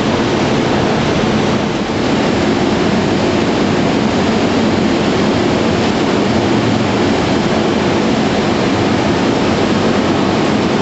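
Steady mechanical running noise of a Sergiani LAS 230 multi-daylight hydraulic door press at work, as a daylight opens and the press block travels down to its start position.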